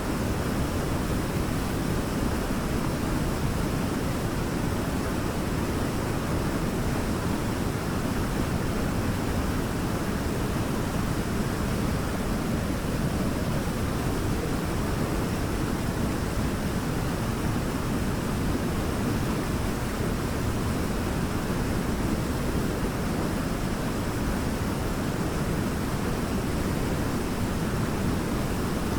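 Waterfall with a steady, unbroken rush of falling water, deepest in the low range.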